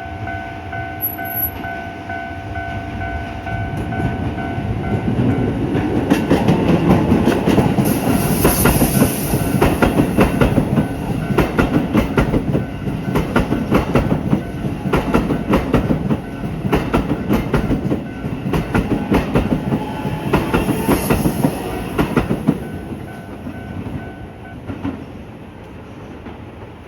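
A Keisei 3000-series electric train passes through a level crossing, its wheels clattering rhythmically over the rail joints, loudest in the middle as the cars go by. The crossing's electronic warning bell rings throughout and stops near the end as the train clears.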